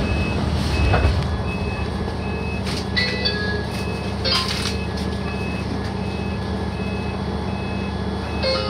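A repeating electronic beep, about four short beeps every three seconds, over the steady low hum of a standing electric train.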